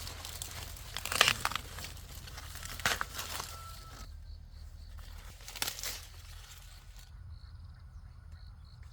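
Rustling and crinkling of dry plant material being handled or pushed through, with a few sharp snaps.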